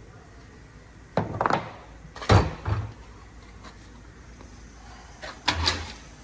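Heavy truck brake caliper parts being handled: three short bouts of clattering and knocking, the sharpest knock a little over two seconds in.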